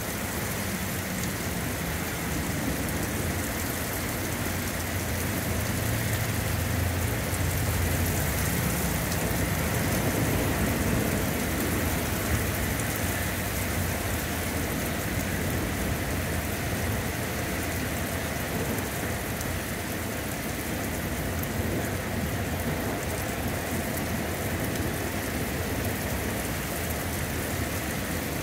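Heavy rain pouring down onto a paved parking lot and parked cars, a dense, steady hiss. A low rumble swells in the middle and fades again.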